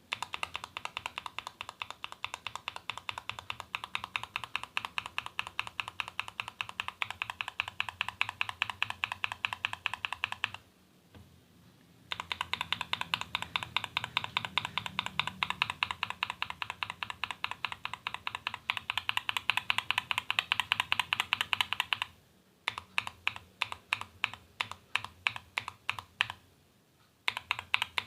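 Mechanical keyboard with stock tactile switches in an aluminium case being typed on in fast runs of keystrokes, with two short pauses. Past the middle there is a stretch of slower, single key presses, then a brief pause and fast typing again near the end.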